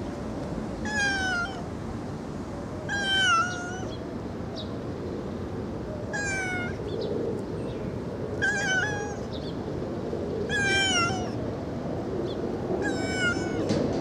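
Kitten meowing six times at about two-second intervals, each meow short, high and slightly falling in pitch, over a steady low background noise.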